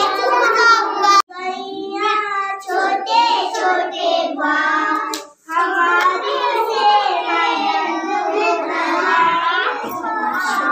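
Young children singing Hindi devotional songs (bhajans) solo and unaccompanied, one child's voice after another, the singing breaking off abruptly twice.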